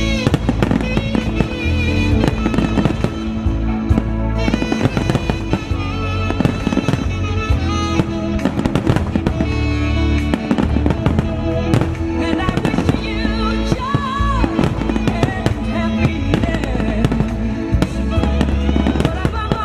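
Aerial firework shells bursting one after another in a dense barrage, many sharp bangs overlapping, with music playing along with the show.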